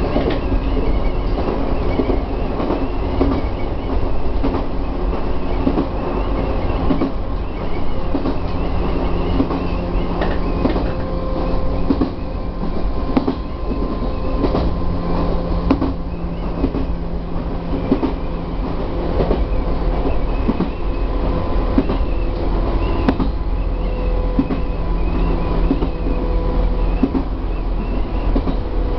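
Chichibu Railway 1000 series electric train (ex-JNR 101 series) heard from inside the driver's cab while running along the line. There is a steady rumble and hum of the motors and running gear, with irregular clicks and knocks of the wheels over the rail joints.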